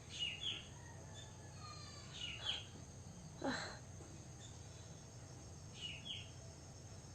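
Faint bird chirps: short downward calls in pairs, near the start, about two and a half seconds in, and again near six seconds. A brief louder noise comes about three and a half seconds in.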